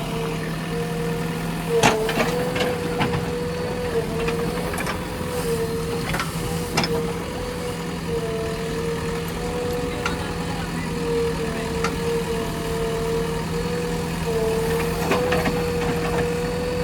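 Backhoe loader running steadily at work, a constant high hum whose pitch dips briefly now and then, with scattered sharp knocks, the loudest about two seconds in.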